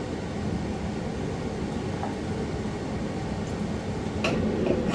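A steady background hum, like a fan or air conditioner running. Near the end, short scraping or rubbing sounds begin.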